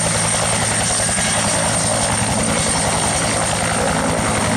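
Turbine helicopters running close by, rotors turning: a steady high turbine whine over a fast, even rotor beat.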